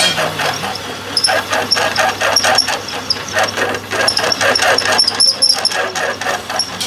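Large twist drill boring into a steel nut on a metal lathe: the cut comes as a quick, uneven run of harsh strokes, several a second.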